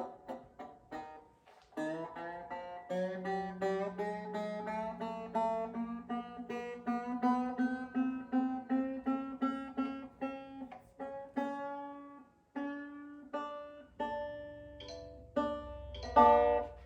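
Ortega Falcon banjo string plucked over and over, about two or three times a second, its pitch creeping slowly upward as it is tuned. A low rumble of handling noise comes in near the end.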